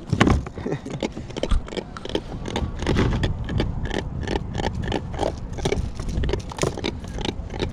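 A hooked crevalle jack thrashing at the kayak as it is landed: irregular knocks and splashes, several a second, with the jack's croaking grunts.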